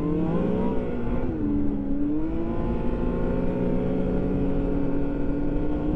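Yamaha-built 1049 cc three-cylinder four-stroke engine of a 2014 Arctic Cat LXR snowmobile under way. The revs rise briefly, ease off about a second in, then hold fairly steady with a slow climb.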